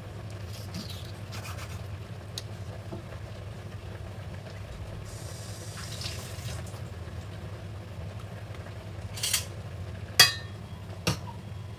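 Kitchen sounds over a steady low hum: a brief hiss about five seconds in, then a few sharp clinks and knocks of kitchen things being handled near the end, the loudest about ten seconds in.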